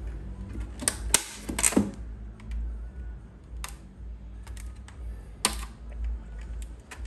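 Plastic snap-fit clips of a Huawei B612 router's casing clicking loose as a pointed tool pries along the seam, with small scraping ticks of the tool on the plastic. There are several sharp clicks: a cluster about one to two seconds in, then single ones later. Each click is a clip releasing from its catch.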